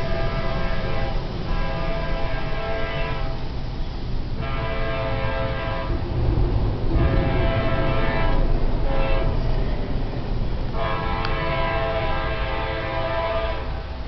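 CSX diesel locomotive air horn sounding a chord of several notes in a series of blasts: the end of one blast, then long, long, short, long, the grade-crossing signal, the last ending about 13 and a half seconds in. A low rumble of the approaching train runs underneath.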